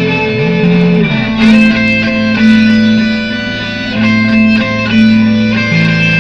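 Electric guitar improvising over a looped guitar layer: several sustained notes ring together, with sliding pitch changes near the start and again near the end, and new picked notes about once a second.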